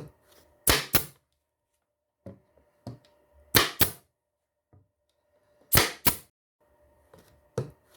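Ozito 80 series pneumatic air stapler firing three times, a couple of seconds apart; each shot is a sharp double crack. A few lighter clicks fall between the shots.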